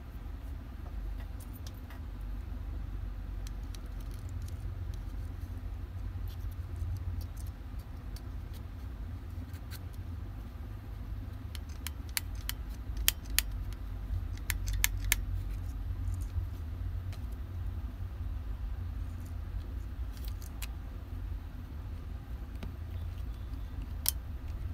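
Scattered sharp metallic clicks and clinks, bunched about halfway through, from tools and parts being handled during repair work, over a steady low rumble.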